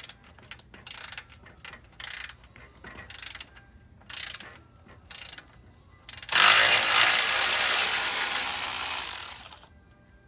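Ratchet wrench loosening the ATV muffler's heat-shield bolts, which were soaked in penetrating oil, working in short clicking strokes about once a second. About six seconds in comes a much louder steady noise lasting about three seconds.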